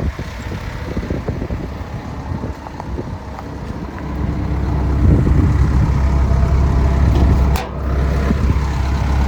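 Kobelco SK210LC-9 excavator's Hino diesel engine running steadily, a low rumble that grows louder about four seconds in.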